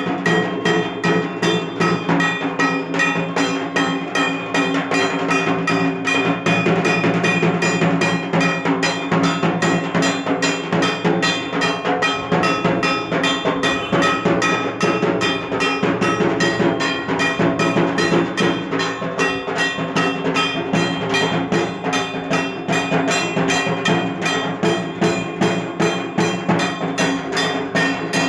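Dhak, the Bengali barrel drum of Durga Puja, played in a fast, steady, unbroken rhythm.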